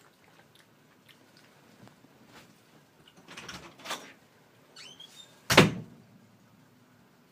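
Handling noises, brief rustles and a short squeak, then one sharp, loud thump about five and a half seconds in.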